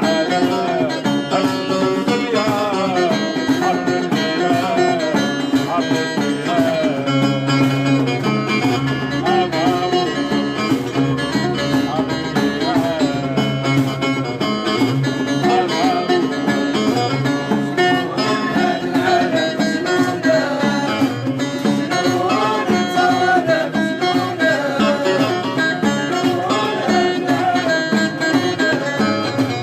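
Live Moroccan music: plucked string instruments playing a wavering melody, with singing.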